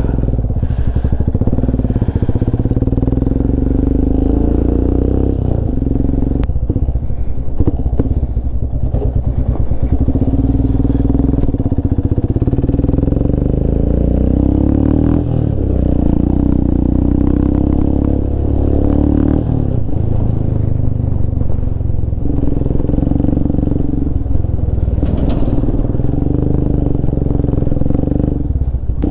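Royal Enfield Himalayan's 411cc single-cylinder engine running through a Red Rooster aftermarket exhaust with the dB killer removed, heard from the saddle while riding. The note climbs and drops several times with throttle and gear changes.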